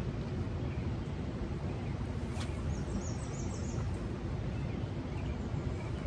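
Steady low rushing riverside ambience, with small birds chirping now and then and a single sharp click about two and a half seconds in.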